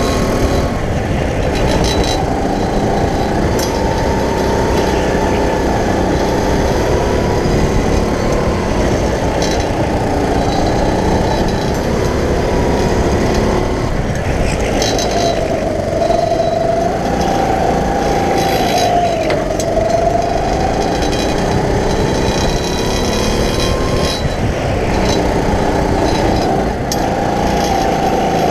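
Go-kart engine heard from on board, running hard, its pitch dipping and rising again and again as the kart slows for corners and speeds up out of them, over a steady rumble and rush of air.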